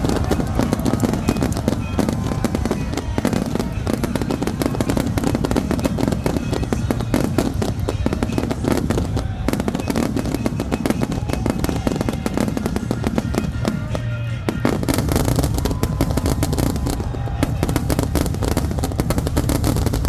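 Fireworks display: a dense, unbroken stream of crackles and pops, easing briefly about fourteen seconds in.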